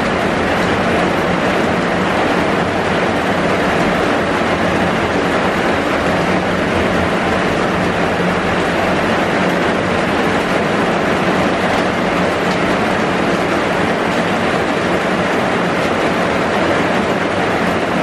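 Heavy rain falling steadily, heard from inside a bus shelter.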